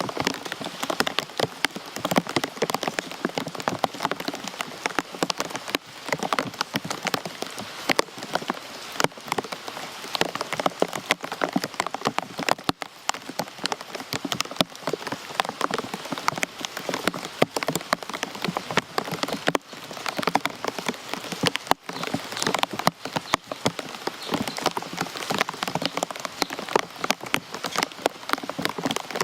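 Rain falling steadily, a dense, irregular patter of drops striking a surface.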